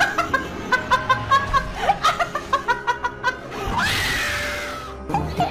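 A young woman laughing hysterically in quick, repeated bursts, then letting out one long scream that falls in pitch about four seconds in.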